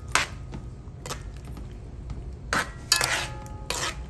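A metal ladle knocking and scraping against the sides of an aluminium cooking pot as a coconut curry sauce is stirred. There are several separate clinks, the loudest about three seconds in, with a short metallic ring.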